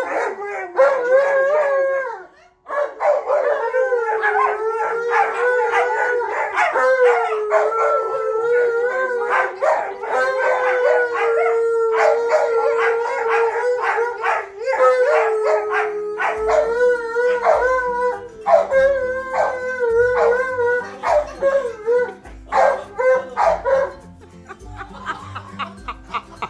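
Dogs howling together: a bully-breed dog and a husky-type dog with heads raised, giving long wavering howls at about the same pitch with short yips breaking in. There is one short break about two seconds in, and the howls break up into shorter calls near the end.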